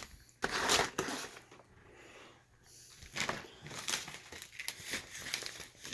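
Packs of consumer firework rockets being handled and shuffled, the packaging crinkling in a few bursts with small knocks and clicks between them.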